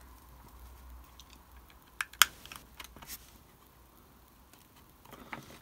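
Handling a small plastic model building and plastic card pieces: a cluster of sharp plastic clicks and taps about two seconds in, the loudest a single click, then faint handling noise.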